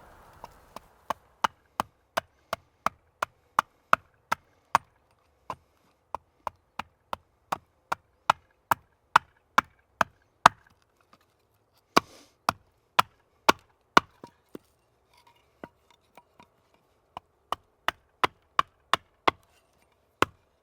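Hand hammer striking wood in quick, even blows, about two to three a second, with short pauses around the middle and a few softer, sparser blows after them.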